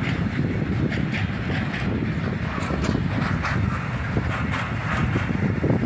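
Freight train of open-top gondola wagons rolling past: a steady low rumble of wheels on the rails, with repeated short clattering clicks.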